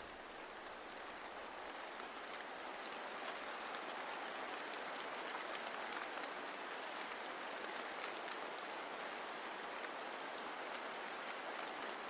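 Steady rain falling, an even hiss that swells slightly over the first few seconds and then holds.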